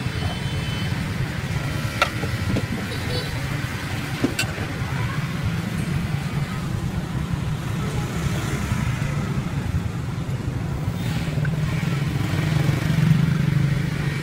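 Steady low rumble of street traffic with motorbikes, swelling near the end, under faint background voices. Two sharp clicks come about two and four seconds in.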